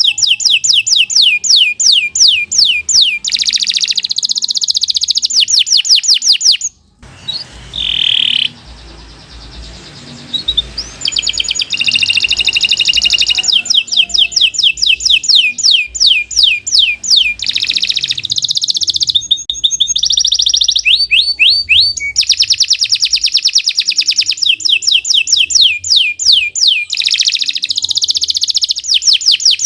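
Domestic canary singing a long, continuous song of rapid trills: fast runs of repeated downward-sweeping notes. The song breaks off briefly about seven seconds in and resumes a few seconds later.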